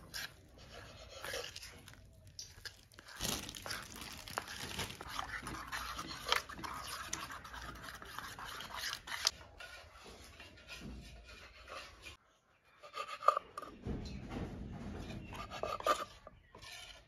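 A metal spoon stirring and scraping gram-flour batter in a steel bowl. After a short gap about twelve seconds in, a knife cuts bread slices on a wooden board.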